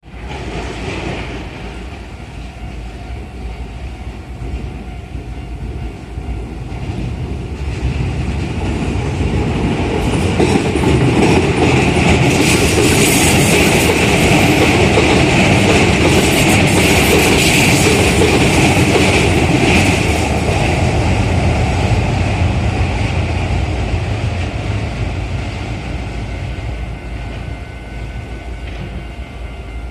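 Chiba New Town Railway 9800-series electric train passing over a level crossing: wheel-on-rail noise builds, is loudest from about 11 to 20 seconds in, then fades away. The crossing's warning bell rings with it.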